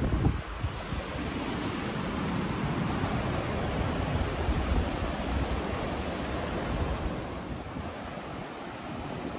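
Sea surf washing over a rocky shore, a steady rushing hiss, with wind gusting across the phone's microphone as a rumble that eases near the end.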